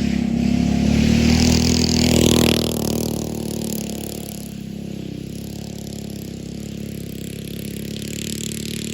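Small go-kart engine running, louder and revved for the first couple of seconds, then easing back to a lower, steady run.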